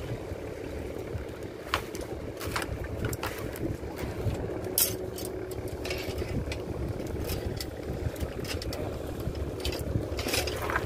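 Small boat engine running steadily at low speed, with scattered light knocks and clicks over it.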